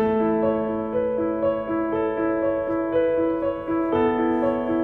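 Soft background piano music: a repeating pattern of notes, about two a second, over a held low note that changes about four seconds in.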